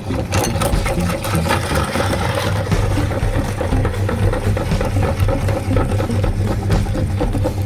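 Electric meat grinder motor running steadily, with a constant hum and a dense crackle of candy being ground.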